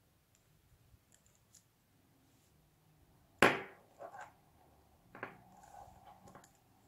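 Handling noise from working a paracord knot tight around a metal snap hook: one sharp knock about halfway through, then a few lighter clicks and rubbing.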